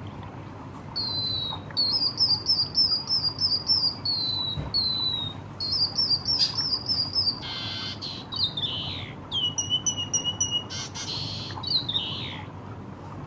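White-headed munia (emprit kaji) singing a canary-like song. It gives several phrases of fast repeated high chirps with short breaks between them, then a few slurred, falling notes near the end.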